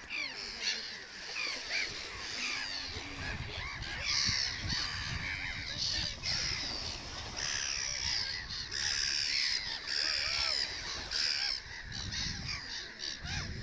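Many birds calling at once, with short, overlapping high cries throughout.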